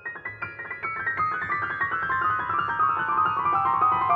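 Kawai grand piano played solo: a fast run of notes that steps down in pitch and grows steadily louder.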